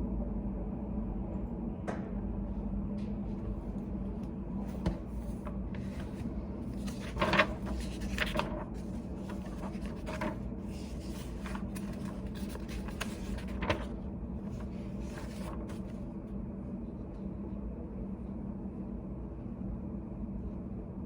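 Steady low hum of room ambience, with scattered small knocks, clicks and rustles of handling at a desk. These come mostly in the first three-quarters, the loudest about seven seconds in.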